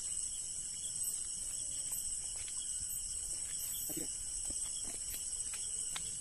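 Night insects, crickets, keeping up a steady high-pitched chirring chorus, with a few faint ticks and a faint short low sound about four seconds in.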